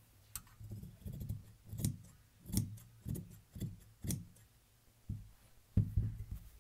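Large tailor's shears cutting through dress fabric in a series of snips, about two a second, with a short pause after about four seconds. Near the end comes a louder knock as the shears are set down on the table.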